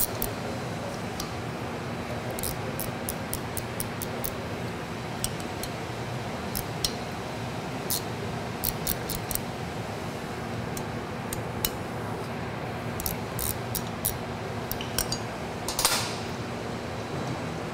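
Short runs of rapid metallic clicking as the bolts of a Taco FI pump's seal cover are worked loose by hand, with a louder ringing metal clink near the end, over a steady workshop hum.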